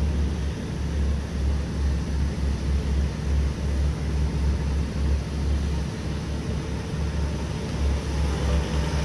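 Low, steady engine rumble of an idling vehicle, wavering a little in level, with a faint hiss of outdoor noise above it.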